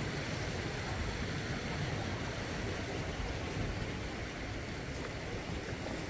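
Small sea waves washing and splashing against low black volcanic rocks along the shore, a steady, even wash of surf.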